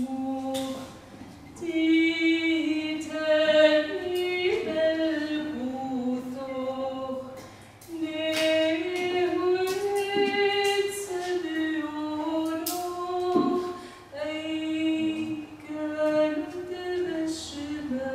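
A woman singing solo and unaccompanied, in long phrases of held notes with ornamented turns in pitch, pausing briefly between phrases.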